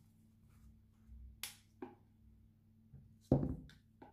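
Handling noises of a headlamp and tools being picked up and set down: two sharp clicks, then a louder dull thud about three seconds in and a few lighter clicks. A faint steady electrical hum runs underneath.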